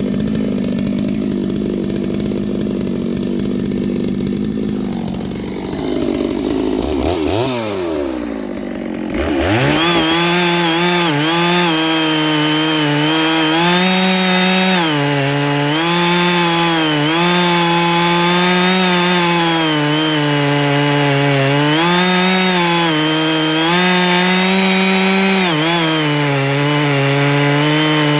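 Neo-tec NS892 two-stroke chainsaw running loud with a .404 chain. The engine note sags and then winds quickly back up to high revs about nine seconds in. After that it holds near full throttle, its pitch dipping and recovering every second or two.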